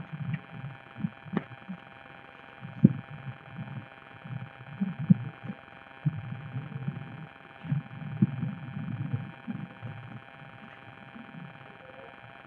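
Irregular dull low thumps and bumps, a few sharper than the rest, over a faint steady electrical hum.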